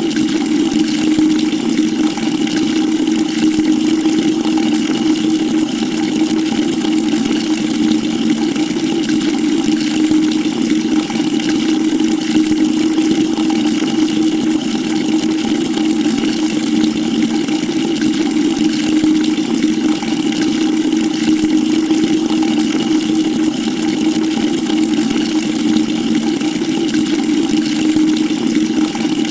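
Water pouring steadily into a bucket: a continuous rush with a steady low drone underneath.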